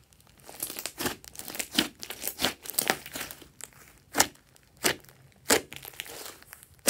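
Thick slime with floam beads mixed in, squeezed and stretched by hand: a run of crackling with sharp pops as trapped air pockets burst. It starts about half a second in, and the loudest snaps come every half second to a second.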